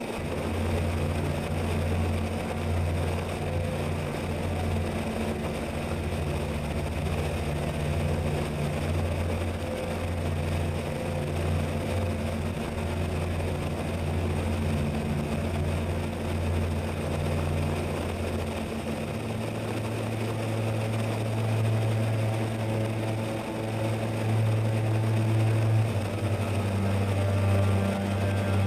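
Steady drone of the Zeta FX-79 flying wing's electric pusher motor and propeller, heard through the onboard camera in flight; its pitch shifts about two-thirds of the way through and again near the end.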